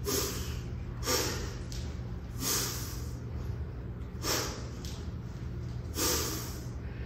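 A man's sharp, forceful breaths out, five of them about one and a half seconds apart, one with each rep of a single-arm kettlebell clean, over a low steady hum.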